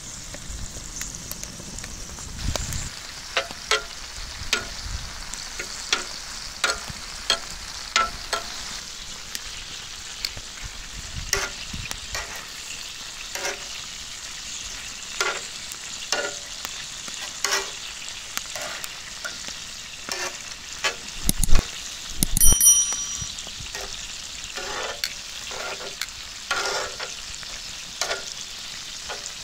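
Langoustines and prawns sizzling on a wood-fired steel plancha, a steady hiss with many sharp pops of spitting fat. About three quarters of the way through, metal tongs knock against the plate with a brief metallic ring, the loudest sound.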